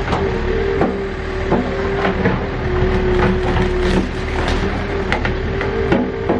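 Backhoe's diesel engine running under load with a steady hum, while irregular sharp clanks and cracks come from the digging.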